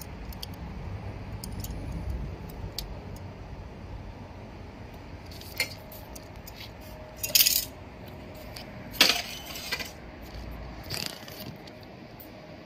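Sharp metallic clinks and rattles of sheet-metal parts being handled, in four separate bursts spread over several seconds, the loudest about halfway through, over a low steady hum.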